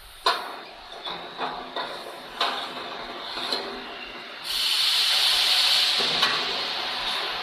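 Several metal knocks and clicks as a safety bar is fitted on a stainless-steel washing machine, then a loud, steady hiss starts suddenly about four and a half seconds in.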